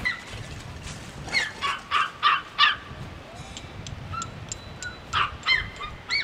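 A dog barking: a quick run of four sharp barks, then a few more near the end.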